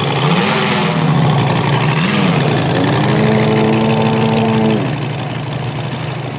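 Engine of a giant-scale radio-controlled Grumman F4F Wildcat model idling. The pitch rises and falls with two short throttle blips. It then holds a higher steady note for about two seconds before dropping back to idle.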